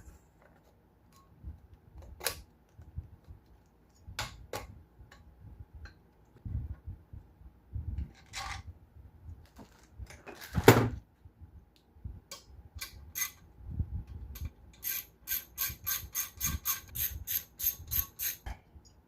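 Metal tools and engine parts knocking and clinking during work on a Predator 212 engine block, the loudest knock about ten seconds in, then a fast, even run of ringing metallic clicks, about six a second, for some three seconds near the end.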